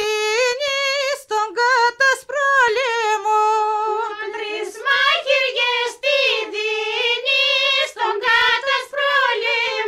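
A woman's voice singing a Greek folk song unaccompanied, holding long notes with wavering, ornamented pitch and breaking briefly between phrases.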